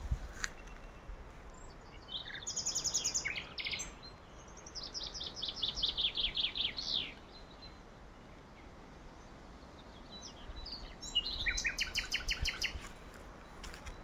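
Songbirds singing in short, high, trilled phrases: one quick run of notes falling in pitch and two rapid trills, with pauses between them.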